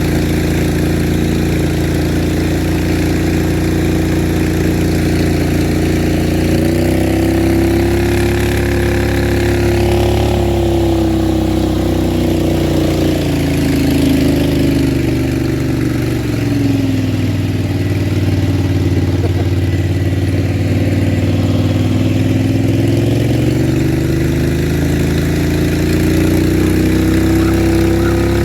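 Small engine running continuously, steady at first, then its pitch rising about seven seconds in, sagging for a stretch in the middle and climbing again later as its load changes.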